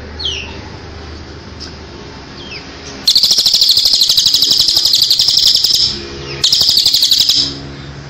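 Recorded song of cililin and ciblek (bar-winged prinia), used as a training track for songbirds: a few short down-slurred chirps, then a loud, rapid trill for about three seconds and, after a brief break, another for about a second.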